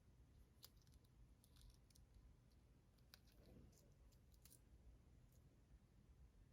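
Near silence, with a few faint, scattered light clicks from small plastic packaging being handled.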